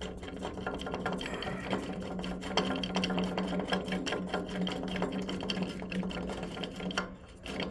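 Chain Monkey chain-tension gauge being unwound by hand, its threaded adjuster spinning with a steady, fast mechanical whirr and rattle.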